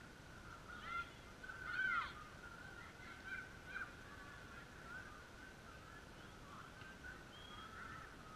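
Distant, overlapping shouts and calls of footballers during play, the loudest cry about two seconds in.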